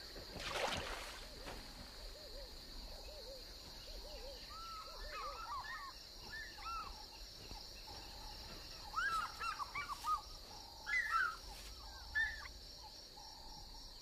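African fish eagles calling in short, arched yelping notes that come in several clusters in the second half, over a steady high-pitched insect drone. A brief whoosh comes just under a second in.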